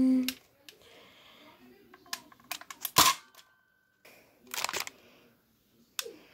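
Plastic clicks and clacks of a Nerf Accustrike blaster being primed and its trigger pulled: a few light clicks, a sharper clack about three seconds in, a short burst of clatter a little later, and one more click near the end.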